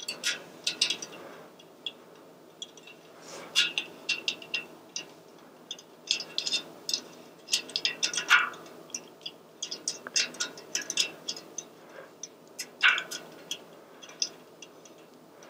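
Spoke wrench working on the spoke nipples of an e-bike hub-motor rear wheel: irregular metallic clicks and rattles in small clusters.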